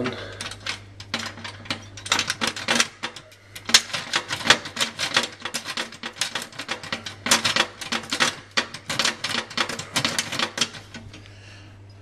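Metal wafer rake being scrubbed in and out of a mailbox's double-sided wafer lock: rapid, irregular clicking and rattling of the pick against the wafers. There are a few short pauses, and it stops about a second before the end.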